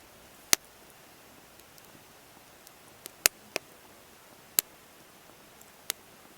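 Wood fire crackling: a handful of sharp, irregular pops over a faint steady hiss, the loudest about half a second in and again a little past the middle.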